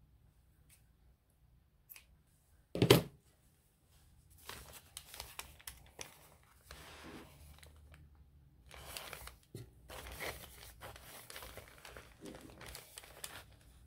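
Paper pages of a handmade journal rustling and crinkling while sewing thread is pulled through the signatures and drawn tight, in irregular scraping bursts. A single sharp knock about three seconds in is the loudest sound.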